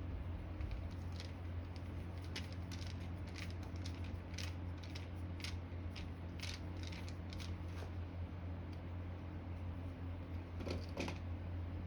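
Irregular light clicks and scrapes of a hand tool working against grimy metal parts of an old electric motor being taken apart, over a steady low hum.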